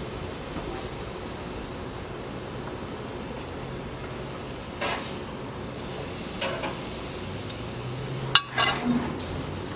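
Chicken breasts sizzling on a gas grill under a steady hiss, with metal tongs clicking and scraping against the grill grate as pieces are lifted and moved. A few sharp clicks come in the second half, the loudest clack about eight seconds in.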